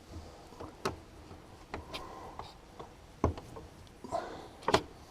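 Irregular clicks and knocks of parts being handled while working on the air filter housing of a 6.0L Powerstroke diesel truck. A few knocks stand out, the loudest near the end.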